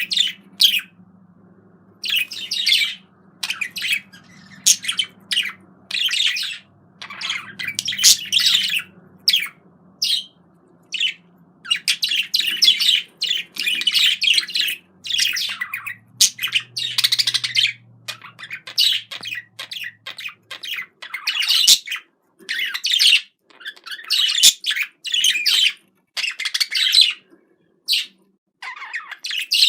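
Budgerigar chattering: quick bursts of high chirps and warbles with short pauses between them, the noisy chatter of a happy budgie.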